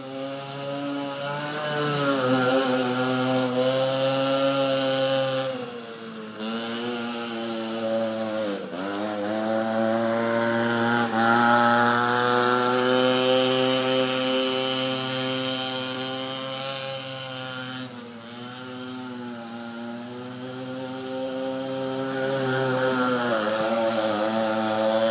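Small youth ATV engine running as it is ridden, its pitch rising and falling with the throttle and dropping off briefly a few times as the rider eases off.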